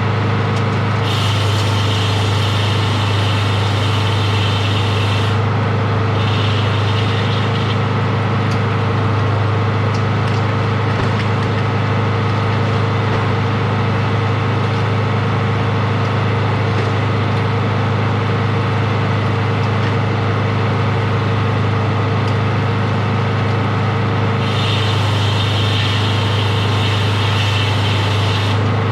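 Sawmill's engine running steadily with a strong low hum. A higher hiss comes in for a few seconds, twice in the first eight seconds and once near the end.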